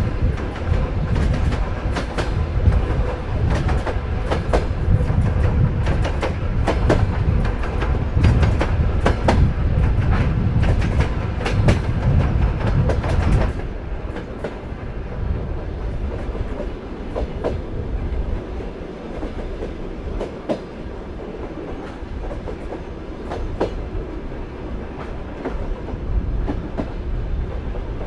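Sleeper train carriage running on the rails: a low rumble with the clickety-clack of wheels over rail joints. About halfway through, the rumble drops and grows quieter, with fewer clicks.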